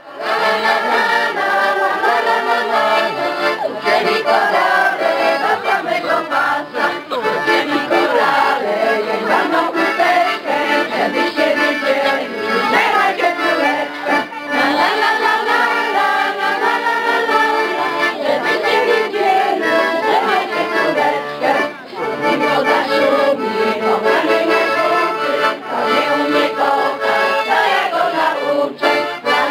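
Piano accordion playing a traditional folk tune, with a crowd of voices singing along.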